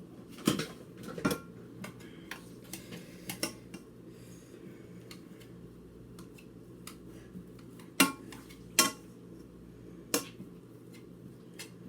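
A metal utensil clinking and scraping against a pan while mashing cooked sweet potatoes by hand, with sharp knocks at irregular intervals, the loudest about eight and nine seconds in.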